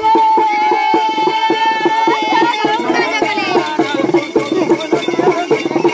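Village folk ritual music: a long held high note for about two seconds, then quick, busy drum beats under a wavering melody.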